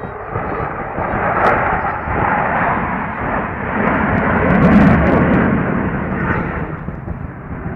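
Fighter jet flying past. A broad engine roar builds to its loudest a little past halfway, then fades.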